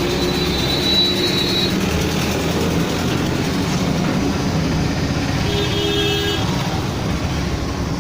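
Hot-air rework machine blowing steadily while heating a phone's circuit board from below to seat a new battery connector. Two brief horn-like tones sound over it, near the start and again about six seconds in.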